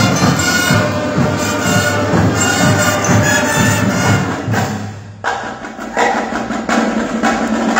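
Marching band playing, brass and saxophones in full. The playing drops away briefly about five seconds in, then comes back with sharp accented hits.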